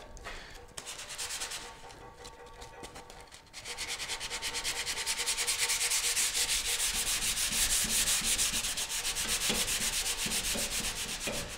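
Sandpaper rubbed by hand over a primed metal car dash in quick, even back-and-forth strokes. The strokes are faint at first and grow steady and louder about three and a half seconds in. This is primer being sanded smooth during paint prep.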